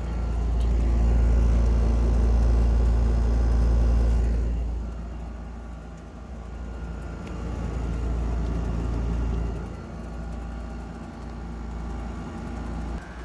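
GE 5050 BTU window air conditioner running on low, a steady fan and compressor hum. A heavy low rumble swells over it for the first four seconds, then comes and goes.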